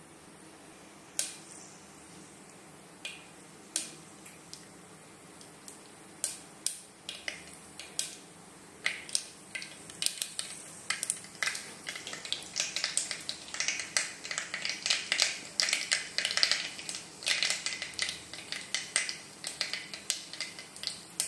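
Mustard and cumin seeds crackling in hot mustard oil in an aluminium pressure cooker: sharp single pops at first, a few seconds apart, growing into a dense spluttering crackle as the oil comes up to heat.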